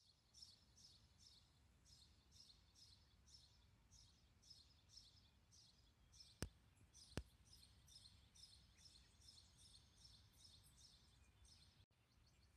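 Near silence: faint, evenly repeated high chirps, about two a second, over a low hum of outdoor noise. Two soft clicks come under a second apart midway.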